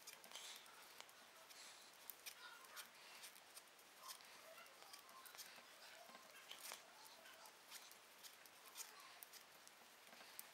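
Faint, irregular small clicks and rustles of a crochet hook pulling yarn through as a chain of stitches is made.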